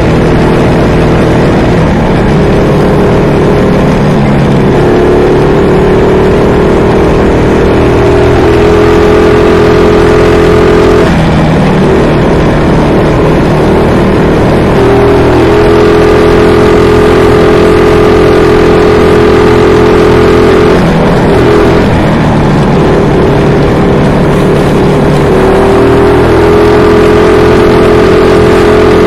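Mini bike's small engine running hard at riding speed, its pitch dropping and climbing back again a few times as the throttle eases off and opens up.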